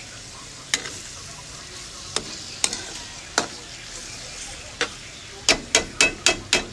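Ground meat sizzling in a metal wok while a metal spoon stirs it, clinking and scraping against the pan. The clinks come about once a second, then in a quick run of about six strikes near the end.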